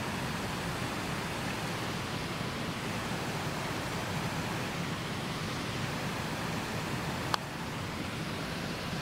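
Steady outdoor hiss, with one sharp click of a golf club striking the ball about seven seconds in.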